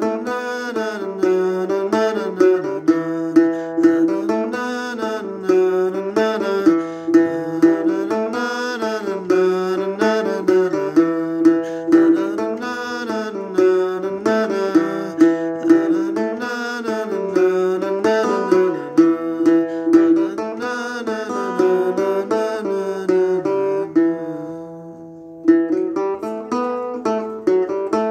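Acoustic guitar picking an instrumental tune in E dorian, with a high note held ringing under a moving melody and bass line. The playing thins out and softens about 24 seconds in, then picks up again with a fresh attack a second or so later.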